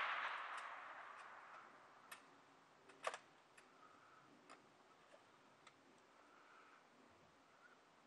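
Echo of a rifle shot fading away over the first couple of seconds, followed by a few faint clicks, the clearest about three seconds in.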